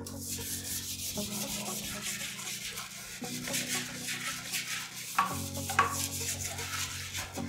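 Plastic-bristled toilet brush scrubbing foaming cleaner around a porcelain toilet bowl: a quick, continuous run of rubbing strokes, with two sharper swishes a little after five seconds.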